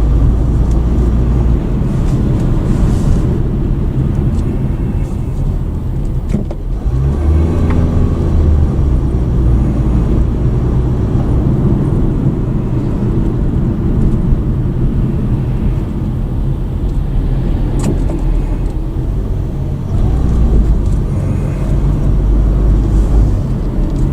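A car driving on a road, heard from inside the cabin: a steady low rumble of engine and tyre noise that swells a few times.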